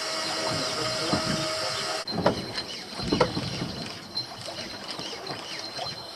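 A small motor whirring steadily, stopping suddenly about two seconds in, followed by scattered knocks and clicks.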